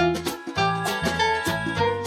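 Instrumental background music: a plucked-string tune over a regular bass beat.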